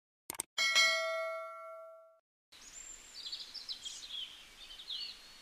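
Two quick clicks, then a bell ding that rings out and fades over about a second and a half: the subscribe-button sound effect. From about two and a half seconds in, birds chirping over a steady hiss.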